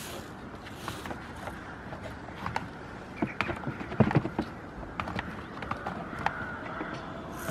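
Goat hooves tapping and shifting on upturned plastic tubs: scattered light knocks, one sharper knock about four seconds in, over a steady outdoor background.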